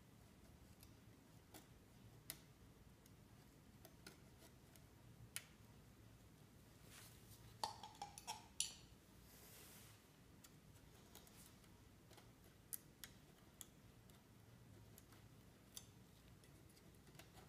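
Faint, scattered small clicks and taps of handwork on brass marquetry as gloved fingers and a metal palette knife press and probe the inlay. About eight seconds in there is a short cluster of louder clicks and a brief rustle.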